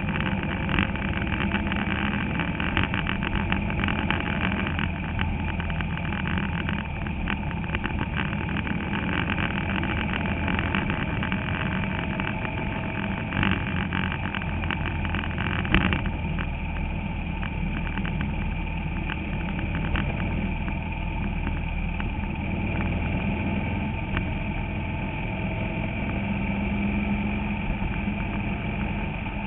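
Bandolero race car's engine running at speed, heard from inside the cockpit, with rattling from the car. Two sharper knocks come near the middle, after which the rattling eases.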